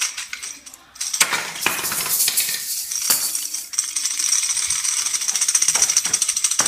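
A toy rattle shaken rapidly, a fast, jingly, high-pitched rattle that starts about a second in and settles into a steady quick rhythm after a few seconds.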